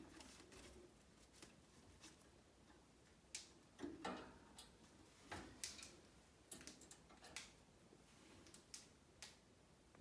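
Near silence broken by faint, irregular clicks and taps, about nine of them from a few seconds in: a cockatiel's feet and beak gripping the cage wires and wooden perches as she climbs.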